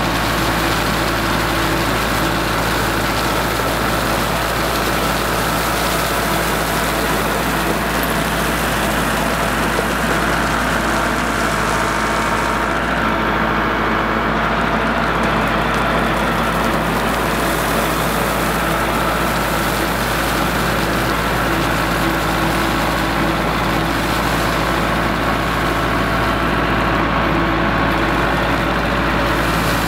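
Kubota MX5400 tractor's four-cylinder diesel engine running at a steady pitch as the tractor drives with a loaded front-loader bucket of rock.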